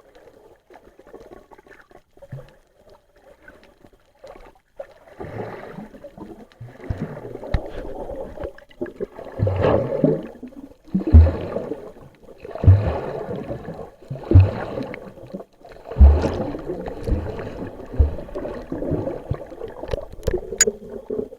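Gurgling, bubbling water picked up by a camera underwater, coming in repeated surges with low thumps about every one and a half to two seconds and growing louder after the first few seconds.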